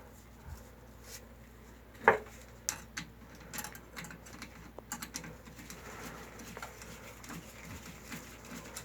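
Light clicks and knocks of hand work on a pipe repair, with one sharper, louder knock about two seconds in and a scatter of smaller ones over the next few seconds.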